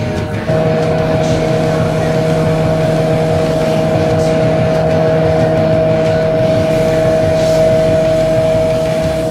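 Airplane engines running steadily in flight, heard from inside the cabin: an even roar with a constant hum of several steady pitches, getting louder about half a second in.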